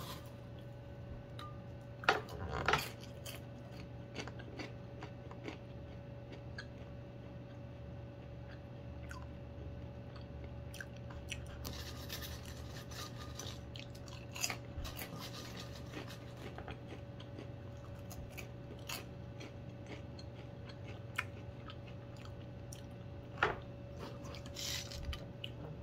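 Popcorn being chewed and crunched, with a hand rummaging through the popped kernels in a ceramic bowl in a few short rustling spells. A faint steady hum runs underneath.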